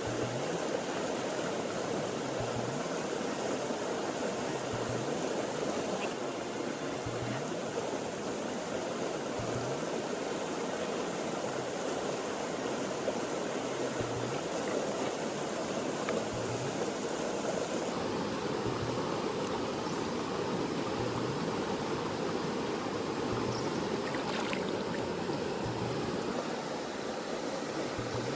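River water flowing steadily: an even rushing noise, its tone shifting slightly about two-thirds of the way in.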